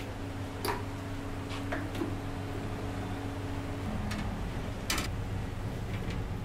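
A few sharp metallic clicks and clinks from a stainless-steel wire grill rack and raw chicken being handled on it, the loudest about five seconds in, over a steady low machine hum.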